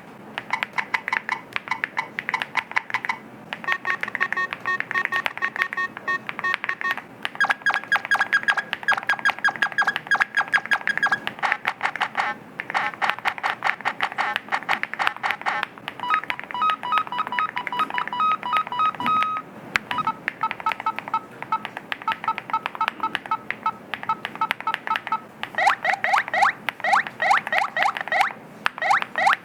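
Rapid typing on the TacWorks TAC-K1 mechanical keyboard, each keystroke setting off a short electronic beep from its built-in speaker. The sound effect changes every few seconds, switching to a different set of pitches about seven times, and near the end the beeps turn into short chirps.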